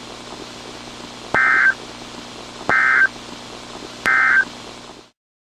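Emergency Alert System end-of-message data tones: three short bursts of rapid two-tone digital warble, about a second and a third apart, over a low steady hiss. The sound cuts off abruptly near the end.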